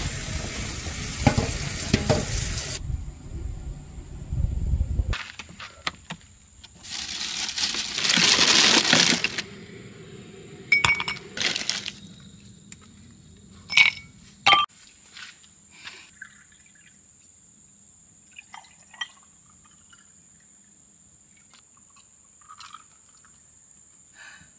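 Tap water running into a stainless steel sink where cleaned tilapia are being rinsed, loudest for a couple of seconds in the middle, then a few sharp glassy clinks of glass bottles and cans being handled in an ice-filled portable fridge, trailing off to faint small ticks.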